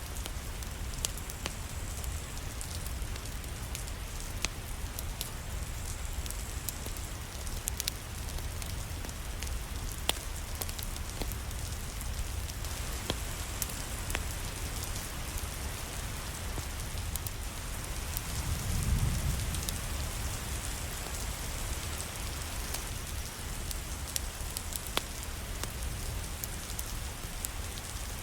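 Steady rain falling, an even hiss with scattered sharp clicks of drops or crackles throughout. A brief low rumble swells and fades about two-thirds of the way through.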